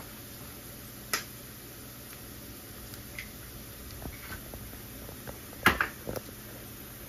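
Diced onion and green chile sizzling softly in oil in a skillet, with a sharp click about a second in and a louder cluster of clicks and knocks just under six seconds in.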